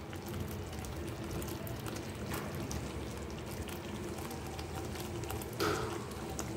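Thick onion-tomato gravy simmering in a pan, bubbling with small soft pops; it has cooked down until thick. About five and a half seconds in there is one short bump.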